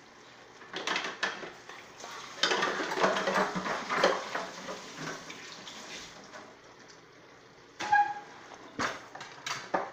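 Steamed cabbage being stirred with a spatula in a large nonstick pan on a gas stove, giving a wet, rustling scrape, with a short squeak and a few sharp knocks of the utensil against the pan near the end.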